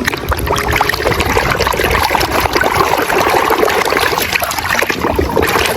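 Water trickling and splashing steadily as a muddy toy is washed, a dense patter of small splashes.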